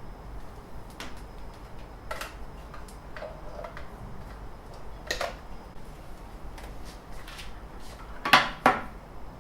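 Scattered light clicks and knocks of objects being handled, with two louder knocks close together near the end.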